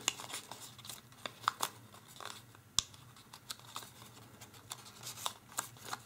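Origami paper rustling and crinkling softly under the fingers as creases are pushed in and pressed, with scattered light clicks and one sharper click about halfway through.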